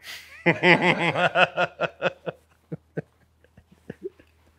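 A person laughing: a quick run of ha-ha bursts that fades out over about two seconds, followed by a few soft clicks.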